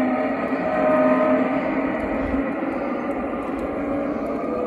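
Sound system of an LGB F7 model diesel locomotive: a horn blast that began just before carries over and fades out over the first couple of seconds. A steady diesel engine drone follows as the train runs along the track.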